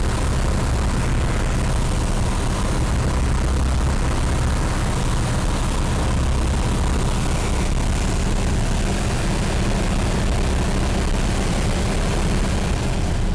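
Steady drone of a Cessna 172's piston engine and propeller in flight, heard inside the cabin with a constant rush of air noise over it.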